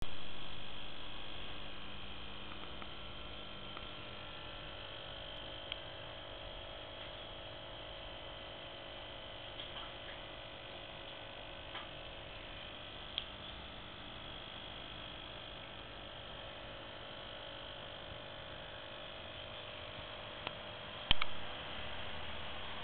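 Steady low hum and hiss of an aquarium picked up by a waterproof camera held underwater, with a few faint clicks and one sharp knock near the end.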